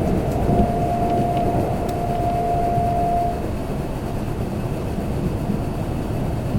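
Kintetsu limited express train running, heard from inside the passenger car as a steady low rumble. A steady whine rides over it and cuts off about halfway through, leaving the rumble a little quieter.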